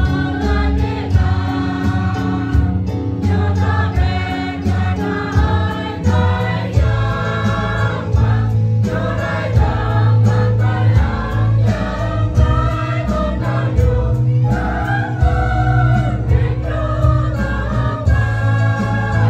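A choir of mixed voices singing a Christian church song, with steady low bass notes from an accompanying instrument underneath.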